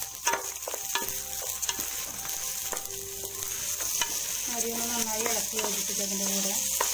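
Jeerakasala rice sizzling as it fries in a pot with whole spices, stirred and scraped with a wooden spatula, the spatula clicking against the pot now and then over a steady hiss.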